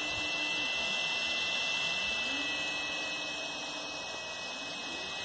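Tronxy FDM 3D printer running: its cooling fans give a steady hiss with a high steady whine, while the stepper motors hum in low tones that rise, hold and drop away as the print head moves, twice over with a third starting near the end.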